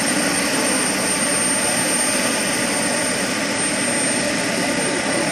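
The JetCat SPT-10RX turboprop of a 1:4 scale DHC-2 Beaver model airplane running steadily in flight overhead: an even turbine-and-propeller rush with a thin, steady high whine.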